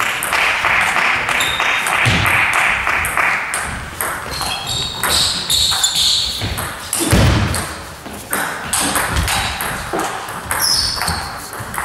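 Table tennis rally: the celluloid ball clicks again and again off rackets and table, with a dull thud about seven seconds in.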